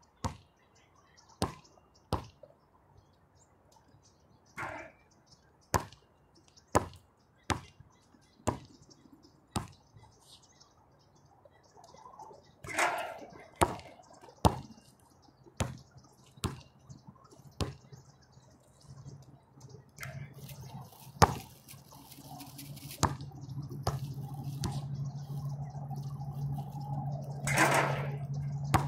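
A basketball bouncing on an outdoor hard court: single sharp bounces come about once a second as it is dribbled. From about two-thirds of the way in, a low steady hum builds underneath.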